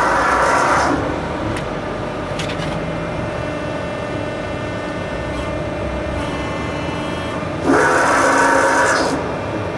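Hydraulic CNC press brake (100-ton KRRASS with Bosch-Rexroth hydraulics) running, its hydraulic power unit giving a steady hum. Twice, at the start and about eight seconds in, the sound swells for about a second into a louder hissing whine as the hydraulics drive the ram.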